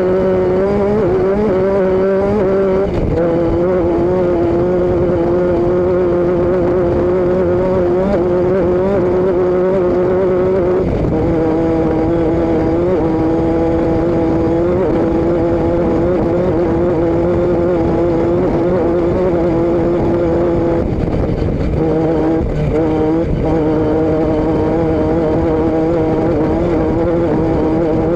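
Vehicle engine and exhaust running at a steady cruising speed, its engine note holding even and dipping slightly lower about eleven seconds in and again near the end.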